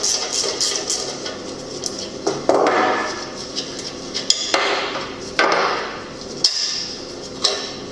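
Metal clinks and taps from hand tools on the parts of a rusty 50cc mini dirt bike being taken apart, with a few short scraping rattles in between.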